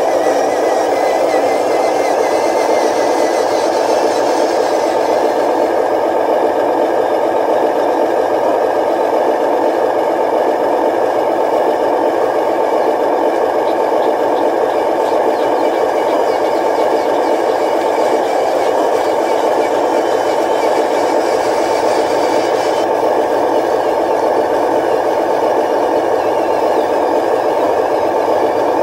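Radio-controlled dump truck running with a steady, unbroken engine-like drone.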